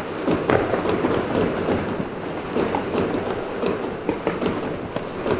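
Many New Year's Eve fireworks and firecrackers going off across a city at once: a dense, unbroken crackle of pops and bangs, with one sharper bang about half a second in.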